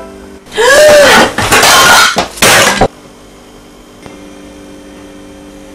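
A china plate smashing on a tiled floor: a loud crash and clattering shards over about two seconds, then a quiet steady hum.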